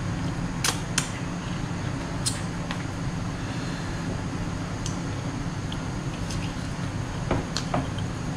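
Steady low room hum with a few sharp clicks and creaks as a hotcake is torn and handled in a cardboard takeout box.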